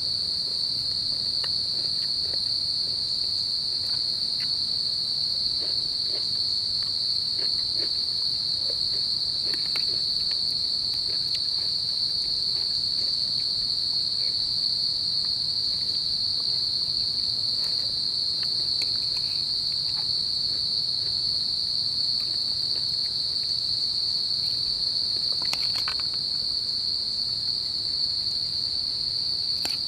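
A steady, high-pitched drone of insects, one unbroken tone at an even level, with a few faint clicks scattered through it.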